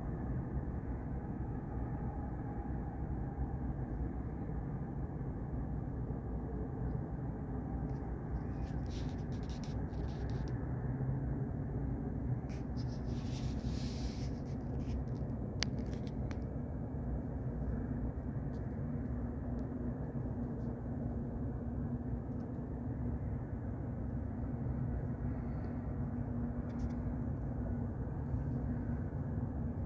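Steady low rumble with a faint droning hum, typical of distant harbour machinery or ship engines running. A few brief hissing patches come near the middle.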